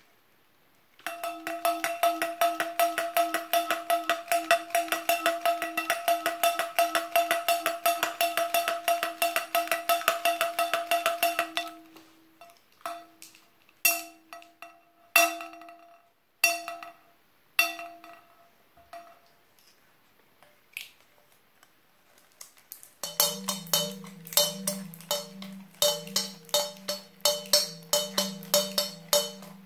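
Homemade bells made from metal trophy cups ringing. The first is shaken in fast repeated strikes with a steady ringing tone for about ten seconds, then struck a few separate times. After a pause, a lower-pitched one rings in fast strikes near the end.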